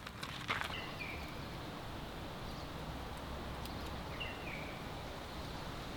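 Quiet outdoor ambience with steady low background noise, and a bird giving a short falling chirp about a second in and again about four seconds in.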